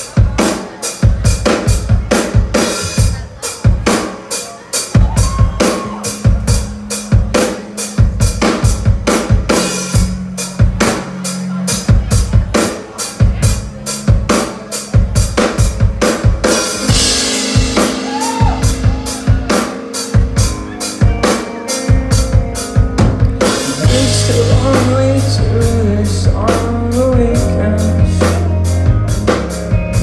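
Rock band playing live, led by the drum kit: kick and snare keep a steady beat under bass guitar and electric guitars. Cymbals crash about halfway through, and over the last few seconds the bass and guitars swell into a fuller, sustained wall of sound.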